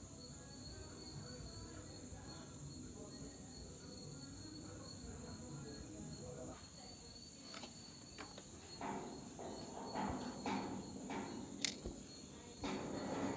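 Crickets chirping steadily in the background. From about halfway through come a few sharp clicks and short rustling handling noises.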